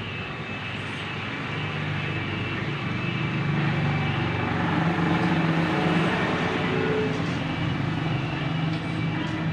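A vehicle engine running, a steady low drone that grows louder over the first few seconds and eases off near the end.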